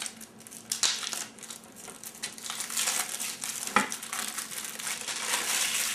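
Plastic wrapping crinkling as it is unwrapped from a stack of trading cards, with a few sharp clicks of handling, the loudest about four seconds in.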